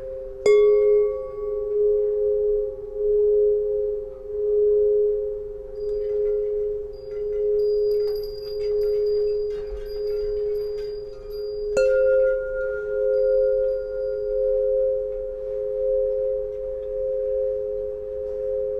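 Solfeggio tuning pipes ringing: two steady pure tones sound together with a slow wavering pulse. A pipe is struck with a bright metallic ping about half a second in, and another is struck again about two-thirds of the way through.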